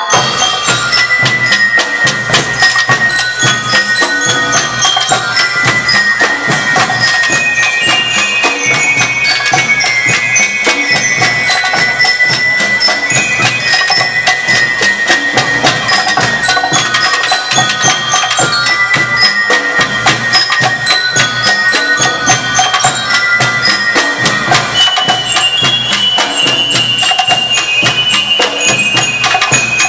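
School rhythm band playing: snare and bass drums keep a dense, steady marching beat under a bright, bell-like melody on glockenspiel-style bell lyres and xylophones.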